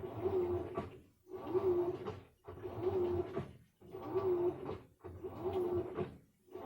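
Samsung washing machine in its wash cycle: the motor hums and the load churns in strokes of about a second, with a brief pause between each, about once every 1.3 seconds as it turns the wash back and forth.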